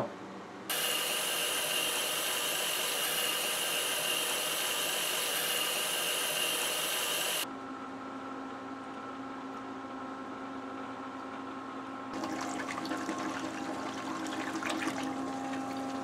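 Small submersible water pump starting up and circulating water through the heat exchanger: first a loud steady rush of water for several seconds, which stops abruptly, then the pump's quieter steady motor hum with water running. Splashing and bubbling come in near the end as the partly submerged pump, still drawing air, is pushed under the water.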